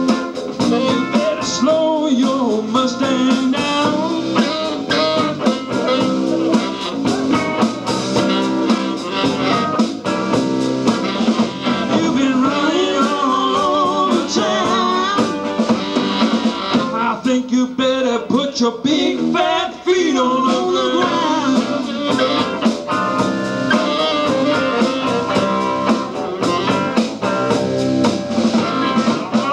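Live band playing a blues number: guitar and drum kit, with a singer.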